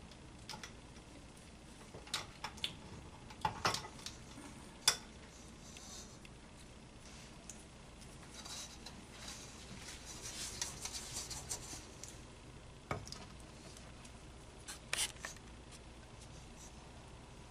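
Faint handling of bread dough on a stand mixer's dough hook: dough pulled and rubbed off the hook by hand, with scattered light clinks and taps against the metal hook and steel bowl, and a soft rustling rub in the middle.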